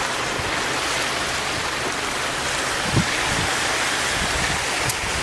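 Steady rushing noise of shallow seawater washing over a flooded road, mixed with wind, with one soft low thump about three seconds in.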